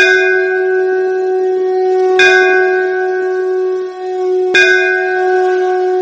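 Intro music: a steady, held horn-like drone with a bell struck three times, a little over two seconds apart, each strike ringing on.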